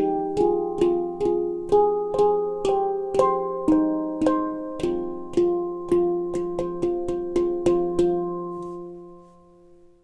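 McCarthy nitrided-steel handpan tuned to F low Pygmy, played by hand: a steady run of single struck notes, about two to three a second, each ringing on. After the last strike, about eight seconds in, the notes ring out and die away.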